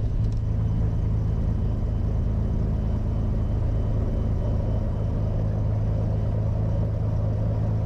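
Beechcraft Bonanza's piston engine running at low power on the ground, heard from the cockpit as a steady drone with a strong low hum.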